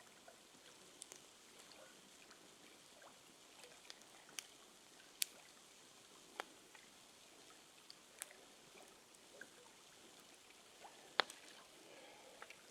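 Faint steady hiss broken by scattered sharp clicks and pops, about half a dozen standing out, the loudest a little after five seconds and again about eleven seconds in.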